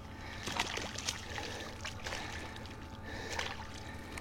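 Light water trickling and small splashes at the side of a kayak, with a few scattered sharp ticks, while a hooked gar is worked in alongside.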